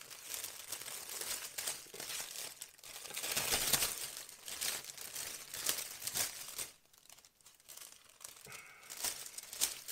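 Model kit packaging crinkling and rustling as the kit box is searched through for a part, loudest about three to four seconds in, with a short lull near the end.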